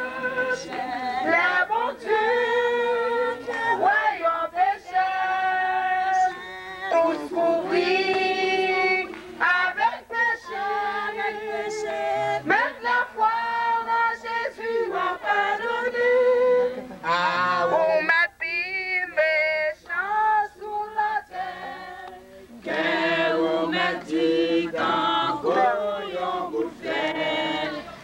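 A group of men and women singing a hymn together, with a woman's voice carried through a handheld megaphone.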